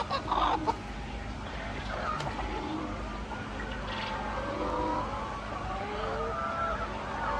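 A flock of hens clucking and calling, with many short overlapping calls throughout, over a steady low hum. A brief louder noise comes right at the start.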